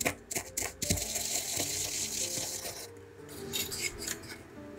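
Wooden pestle crushing and grinding dried strawberry pieces in a wooden mortar: a few crunching knocks, then steady grinding and scraping. Light taps follow near the end.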